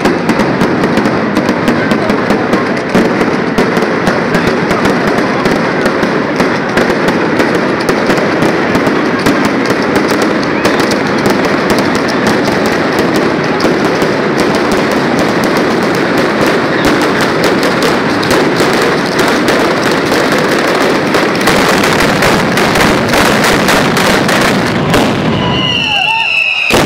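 Ground-level fireworks crackling in a dense, continuous run of rapid bangs and pops that thickens near the end. As the crackle dies away, a few brief high whistling tones sound.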